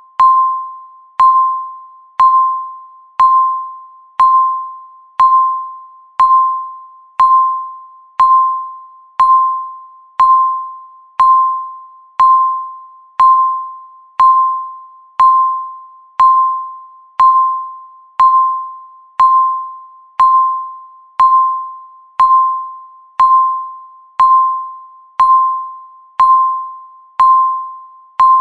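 Electronic countdown-timer beep: a single pitched tone struck once every second, each one sharp at the start and fading away before the next.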